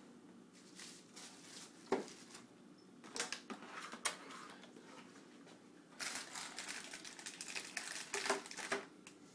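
Boxed computer parts being handled and set down together on a surface: scattered knocks and clicks with rustling packaging, busiest from about six seconds in, with a couple of louder knocks near the end.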